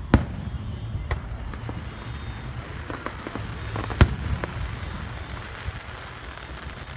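Aerial firework shells bursting at a distance: two sharp booms about four seconds apart, with a few fainter pops between them, over a steady low rumble.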